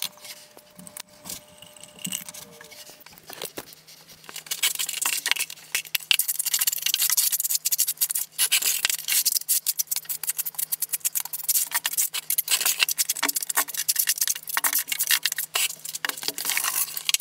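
Rapid, sped-up scraping and clicking of a notched trowel spreading thinset mortar over a concrete shower floor, over a faint steady hum.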